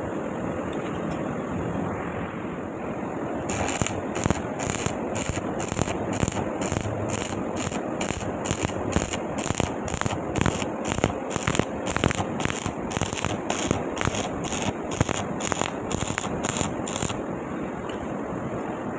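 Electric welding arc crackling steadily while a pipe weld is run. From about three and a half seconds until near the end, the hiss pulses evenly about twice a second.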